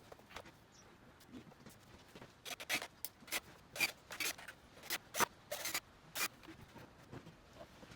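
Short, irregular scraping or rubbing strokes, sparse at first and coming about one or two a second from roughly two and a half seconds in.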